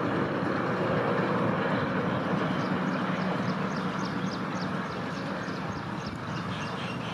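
Passenger train running away down the line at about 90 km/h: a steady rumble of wheels on track that slowly fades. From about two seconds in, light high ticks come about three a second.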